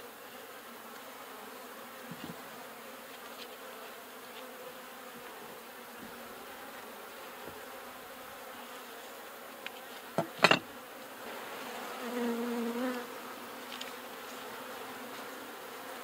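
Honeybees humming steadily around an open horizontal hive. A little past ten seconds a metal hive tool prying a frame loose gives two or three sharp clicks, the loudest sounds, and a bee buzzes close by for about a second a moment later.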